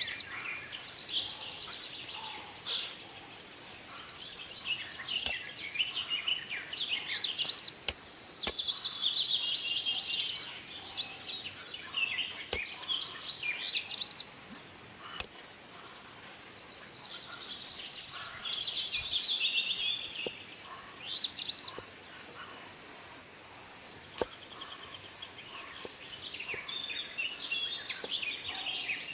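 Birds chirping and singing in repeated phrases of rapid notes that sweep down from high to lower pitch, with stretches of a steady high insect-like buzz between them and a few faint clicks.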